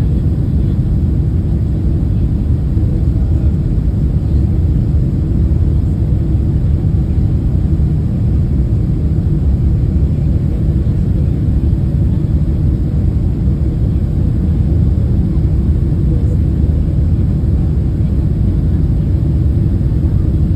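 Steady low rumble of a Boeing 767-300's engines and rushing air, heard inside the cabin from a window seat during the descent on approach. It holds even throughout, with no change in pitch or level.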